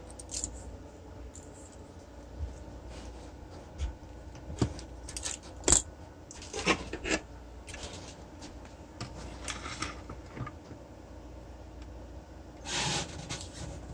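Small metal tools and parts clinking and tapping as they are handled during bench soldering work on an e-bike controller. The clicks come scattered and irregular, the loudest about halfway through, and there is a short rustle near the end.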